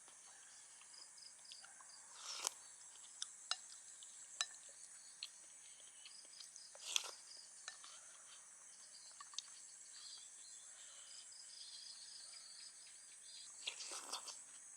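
Faint, steady high-pitched chorus of insects chirring, with a few short sharp clicks and taps scattered through it.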